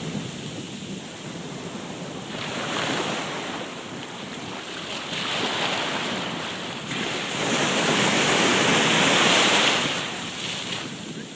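Ocean surf breaking and washing up the beach, in swells that rise and fall about three times, the loudest in the latter half.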